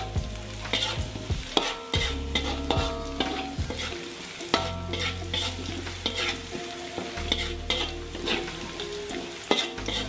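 Metal spatula scraping and clinking against an aluminium wok as sliced shallots and garlic are stir-fried in hot oil, which sizzles. The strokes come in quick irregular runs, several a second, with short metallic ringing from the wok.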